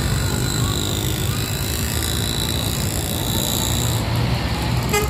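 Steady road traffic: a bus and other vehicles passing, with engine rumble, tyre noise and a thin high whine. A brief pitched blip sounds just before the end.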